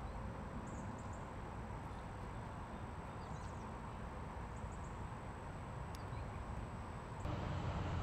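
Outdoor garden ambience: a steady low rumble with a few faint, short high chirps scattered through it. The rumble steps up in level about seven seconds in.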